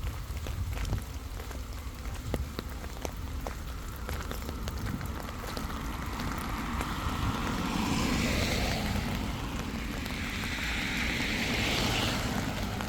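Jet aircraft passing overhead: a rushing roar that swells from about halfway through and is loudest near the end.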